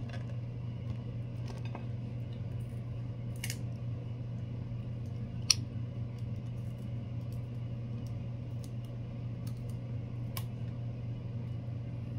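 Scattered sharp clicks and small cracks of large cooked prawns' shells being broken, peeled by hand and bitten. The loudest crack comes a little before the middle. A steady low hum runs underneath.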